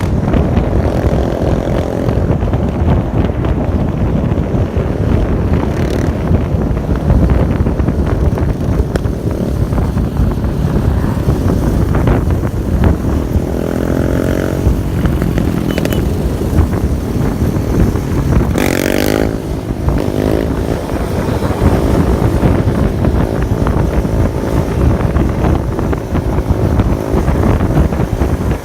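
Quad bike or motorcycle engine running under way, with a steady rumble and wind noise. The revs rise and fall briefly about halfway through and again about two-thirds of the way in.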